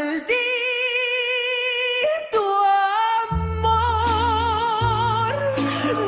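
A woman singing a ranchera, holding long notes with a wide vibrato over the band's accompaniment. Bass notes come in about three seconds in.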